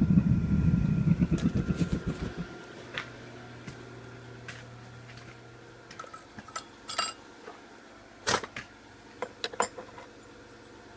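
Forge blower running with a pulsing low sound, then dying away over the first couple of seconds after being shut down. Light metallic clinks and taps follow from the metal being handled.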